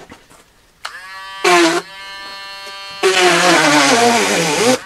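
Small handheld power tool with a spinning bit, cutting through the cardboard shipping box: a steady motor whine starts about a second in, with a brief loud rasp as the bit bites, then a longer loud grinding stretch during which the whine sags in pitch under load before stopping sharply near the end.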